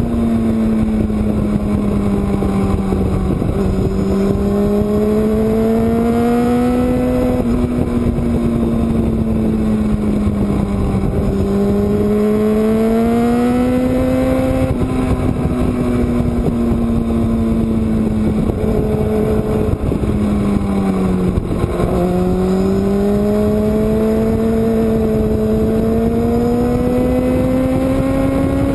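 Sport motorcycle's engine at speed on a racetrack, heard from a camera on the bike over loud wind rush. The engine note climbs under throttle and drops back three times: a few seconds in, about eleven seconds in, and just past twenty seconds. After the last drop it climbs steadily again.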